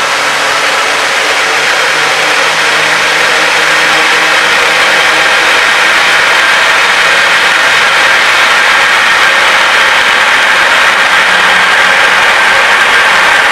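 Water rushing through a VAG EKN butterfly valve as its handwheel opens it, a dense steady hiss with cavitation noise from bubbles collapsing at the valve outlet. It grows gradually louder as the valve opens further.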